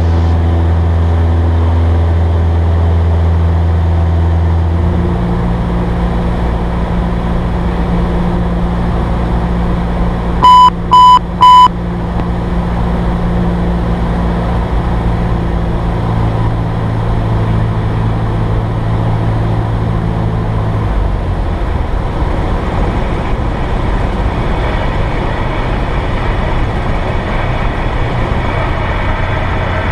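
Cessna 172S's four-cylinder Lycoming IO-360 engine and propeller droning steadily, heard from inside the cockpit, with the drone's pitch shifting about five seconds in and again about twenty seconds in. About ten seconds in, three short, loud electronic beeps sound in quick succession.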